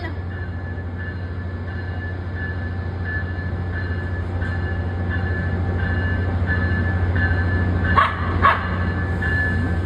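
Amtrak ACS-64 electric locomotive standing and humming steadily, with a faint tone repeating about twice a second. A dog barks twice, the loudest sounds, near the end.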